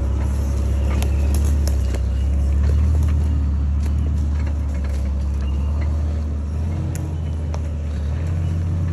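Mitsubishi Pajero 4WD engine running steadily at low revs as it crawls over a rock ledge and up a dirt forest track. Scattered sharp clicks and crunches come from the tyres on rock and sticks.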